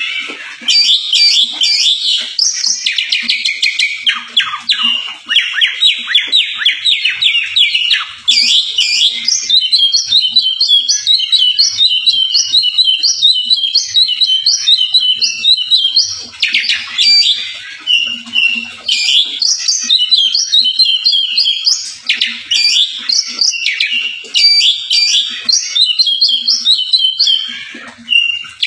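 Oriental magpie-robin (kacer) singing loudly and almost without pause: a fast, varied song of rapid high whistles, runs of quick repeated notes and chattering trills, full of mimicked phrases (isian), broken only by brief gaps.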